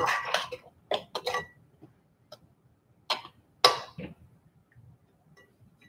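A few light clicks and knocks, spaced out over several seconds, from things being handled on a kitchen counter, after a brief bit of voice at the very start.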